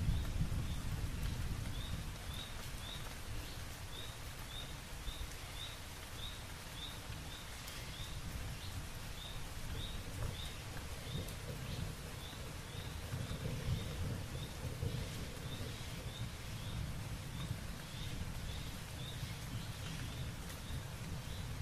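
Outdoor nature ambience: a steady hiss with a low rumble, and a short high chirp repeating evenly about twice a second.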